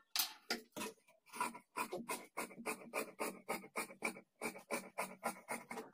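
Tailoring scissors cutting through blouse fabric: a few separate snips, then a quick steady run of about four or five snips a second as the blades work along the edge.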